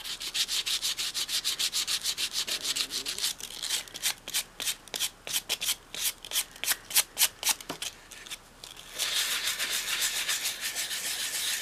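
Sandpaper rubbed by hand over a doll's head covered in a soft filler coating: quick back-and-forth scratching strokes, about six or seven a second, that turn sparser and uneven in the middle, then merge into a steady scratching hiss near the end.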